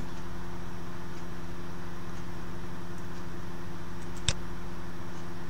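Steady low electrical hum with a fan-like hiss under it, and one short sharp click about four seconds in.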